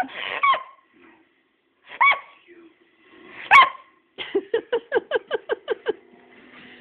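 Greyhound vocalizing, 'talking' in short yelping, bark-like calls: three separate calls, then a quick run of about a dozen rapid falling yips about four seconds in.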